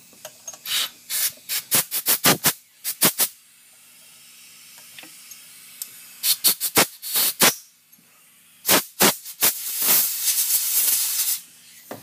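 Clusters of sharp clicks and clacks from a T-handle tap wrench and tap being worked and handled in a stripped thread hole on a Stihl MS 260 chainsaw's crankcase during a Time-Sert thread repair. A steady hiss follows near the end, lasting about a second and a half.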